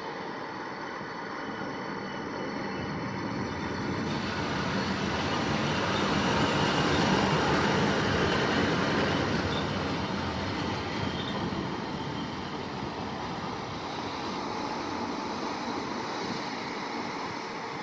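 DB Class 115 electric locomotive running light past on the rails. Its noise swells to a peak about seven seconds in as it goes by close, then fades as it moves away.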